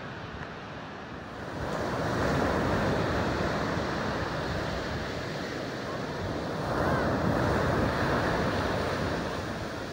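Ocean surf breaking and washing up onto a beach. The wash grows louder about a second and a half in and swells twice as waves come in.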